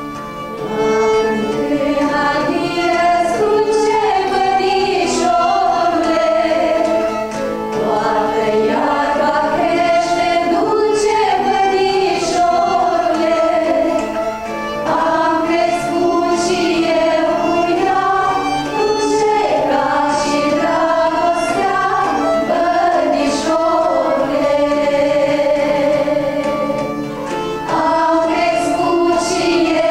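A woman singing a slow song in sustained, gliding notes over instrumental accompaniment, with short breaths between phrases.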